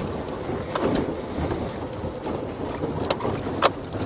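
Safari game-drive vehicle driving off-road: a steady low rumble of engine and tyres, with a few sharp knocks and rattles, the loudest near the end.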